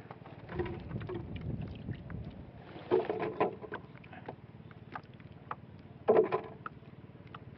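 Water lapping against a small wooden outrigger canoe, with scattered small clicks and knocks as fishing gear is handled in the boat; two louder short knocks or splashes come about three and six seconds in.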